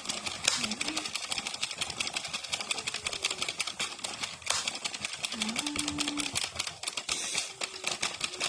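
Addi Express Professional 22-needle knitting machine cranked by hand, its needles clicking in a fast, continuous rattle.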